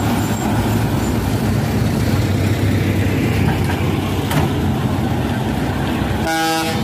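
Heavy trucks driving past close by, their engines running in a steady low drone with road noise. Near the end a vehicle horn sounds a short toot.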